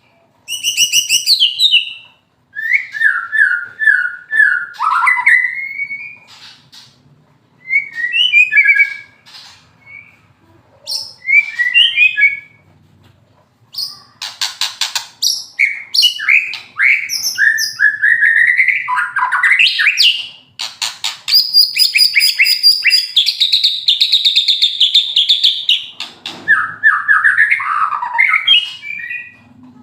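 White-rumped shama (murai batu Medan) singing loud, varied phrases in bursts, including fast rattling 'kretekan' runs and a long buzzy stretch in the middle, the bird singing through its moult.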